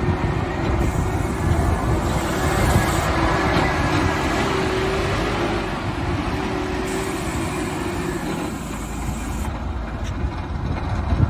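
Backhoe loader working, its engine running steadily, with a steady whine alongside that fades out about eight and a half seconds in.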